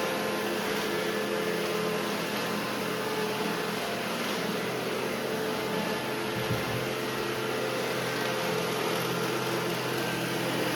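Robot vacuum cleaners running: a steady whir from the suction fans and brushes, with a few low held hums underneath.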